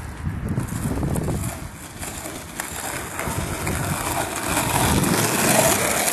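Skateboard wheels rolling over rough asphalt, a steady rumble with hiss, with wind on the microphone. It grows louder over the last couple of seconds.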